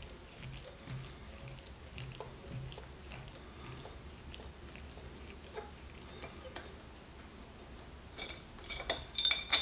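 Faint clicks and small handling noises from working on motorcycle parts with hand tools. Near the end come several sharp metallic clinks of metal tools or hardware knocking together.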